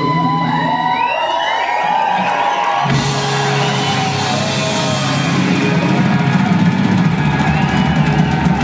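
Live blues band playing the close of a song, electric guitar and drums, with the audience breaking into cheering and whoops from about three seconds in.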